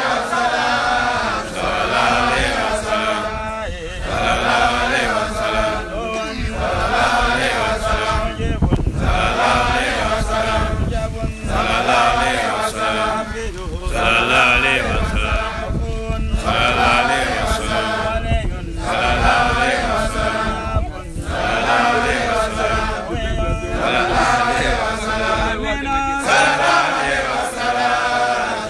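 Men chanting a litany of the Arabic names of God and of the Prophet Muhammad, in repeated phrases of about two and a half seconds with short breaks between them.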